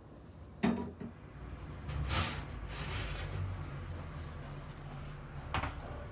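Household handling sounds: a sharp knock, a short rustling swish, then another knock near the end, over a low steady hum.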